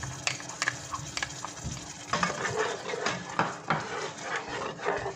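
Spoon stirring yogurt into a thick tomato masala gravy in a nonstick saucepan: irregular scraping and light knocks of the spoon against the pan, busier after about two seconds.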